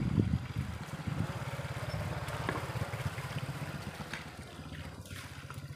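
Stihl 070 chainsaw's two-stroke engine running steadily, an even rapid pulsing low in pitch.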